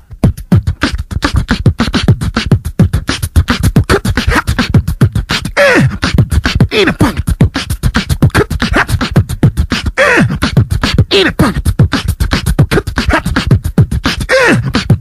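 Fast, loud beatbox-style vocal percussion: rapid sharp clicks and hits with repeated downward-swooping pitched sounds.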